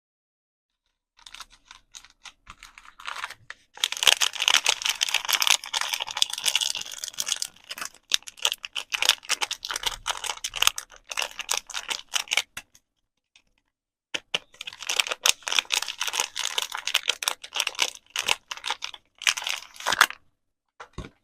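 Soap packaging being handled and unwrapped by hand: a dense run of crackling crinkles and small clicks from the wrapper, in two long stretches with a short pause between them.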